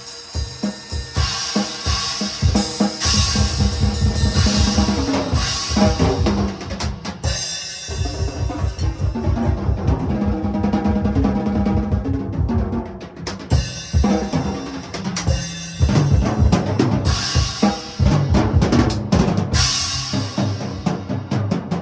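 Drum kit played solo: fast rolls and runs of strokes on the bass drum, snare and toms with cymbals washing over them, easing briefly about a third of the way in before picking up again.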